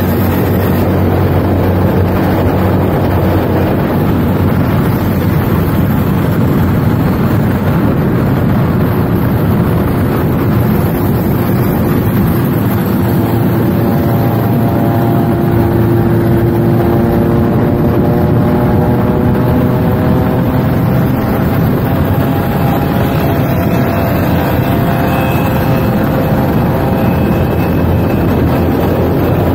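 Motorcycle engine running steadily at road speed under heavy wind noise on the microphone. Through the middle the engine note climbs gently in pitch as the bike gathers speed.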